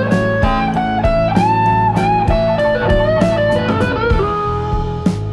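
Background music: an instrumental with a gliding melody line over chords and a steady beat.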